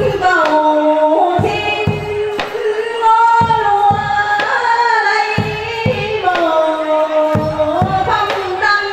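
A woman singing a slow devotional song into a microphone, with long held notes that glide from pitch to pitch. Percussion strokes keep a repeating group of three about every two seconds.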